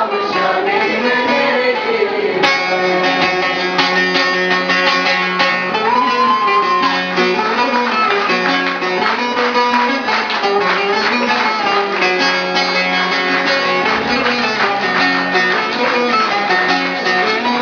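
Bağlama (long-necked Turkish saz) playing a plucked, fast-moving instrumental interlude between the verses of a Turkish folk song.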